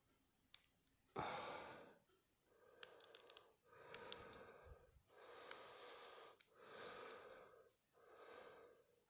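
A person breathing heavily and slowly, about six breaths, the first the loudest. Brief sharp metallic clicks of a lock pick and tension bar working the pins inside a Federal 730 SS padlock come in among the breaths.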